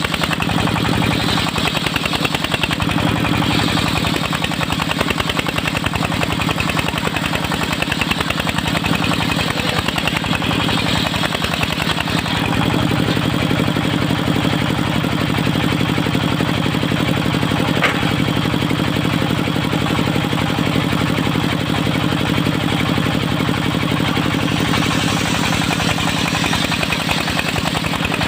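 Engine of a portable circular sawmill running steadily with a rapid chugging beat, its note shifting slightly about twelve seconds in.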